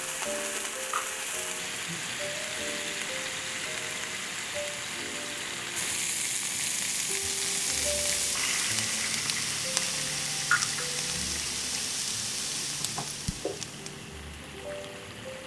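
Jeju ttak-saeu shrimp sizzling in bubbling fat in a frying pan, with a few crackles. About six seconds in, water poured into the hot pan makes the sizzle louder for several seconds before it eases off. Soft background music plays underneath.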